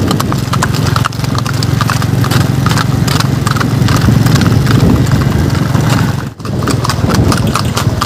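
Horses' hooves clip-clopping on a paved road at a walk, several horses together, close to the microphone, over a steady low rumble. The sound drops out briefly about six seconds in.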